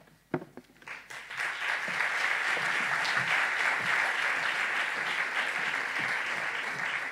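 Audience applauding. A single sharp knock comes just before it; the clapping starts about a second in, swells quickly, holds steady and eases off near the end.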